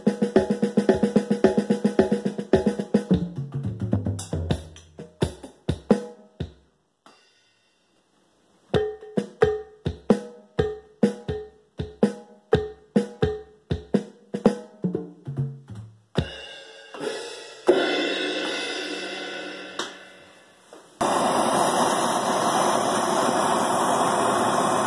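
Drum kit sounds from an Alesis DM10 electronic drum module, triggered from home-made pneumatic pads: a fast beat with hi-hat, cymbal and snare, and tom runs that fall in pitch, with a pause of about a second and a half in the middle. In the last few seconds the drumming gives way to the steady hiss of a handheld gas torch on copper pipe.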